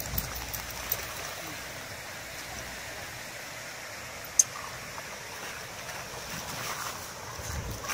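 Water splashing and sloshing as a dog wades through shallow water carrying a stick, growing busier near the end, with one sharp click about halfway through.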